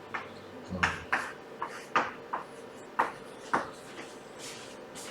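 Handwriting: a series of short, sharp taps and scrapes of a writing tool, about eight strokes spaced irregularly, over a faint steady hum.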